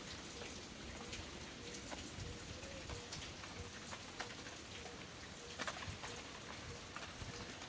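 Steady background hiss with scattered light ticks, a few of them bunched together about three-quarters of the way in.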